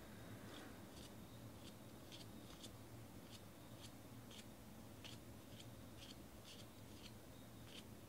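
Faint, soft swishes of basketball trading cards sliding off one another as a stack is flipped through by hand, roughly two a second.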